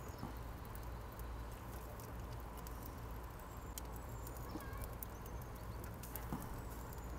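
Faint, irregular crackling and ticking from a charcoal fire with a pecan wood chunk on the coals, over a low steady hum.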